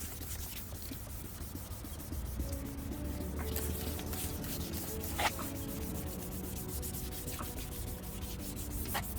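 Sandpaper rubbed back and forth by hand over a plastic headlight lens, sanding off the oxidised clear coat. A faint steady hum sits underneath from about two seconds in.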